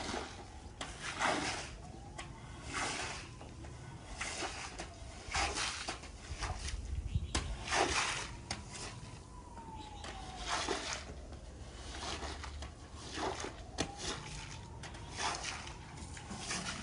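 Wet swishing strokes of a rubber squeegee scraper pushed across a soaked shag rug, forcing soapy dirty water off the pile, about one stroke every second or so. A faint tone that slowly rises and falls runs under the strokes several times.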